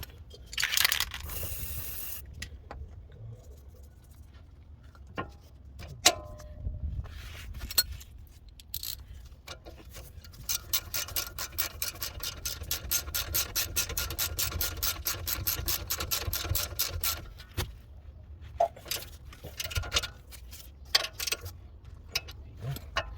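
Ratchet wrench clicking rapidly and evenly, about five clicks a second for some seven seconds midway through. A short hiss about a second in, and scattered sharp knocks of tools on metal.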